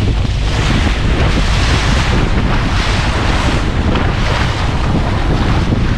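Strong wind buffeting the microphone on a small boat, a dense steady rumble with water and wave noise mixed in.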